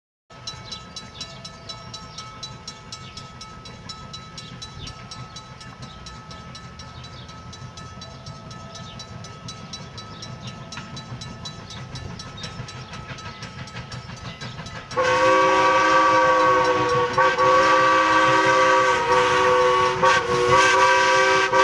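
Strasburg Rail Road #89 steam locomotive and its passenger train running with a fast, even beat. About fifteen seconds in, a loud multi-note whistle chord sounds and is held for several seconds.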